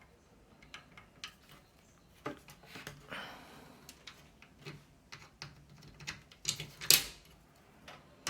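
Scattered clicks and knocks of screws and a screwdriver working a case fan into a PC case, with a short scraping sound about three seconds in and a sharp knock about seven seconds in.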